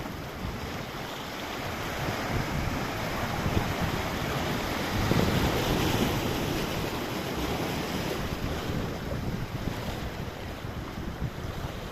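Sea waves washing in, with wind buffeting the microphone; a wave swells louder about five seconds in.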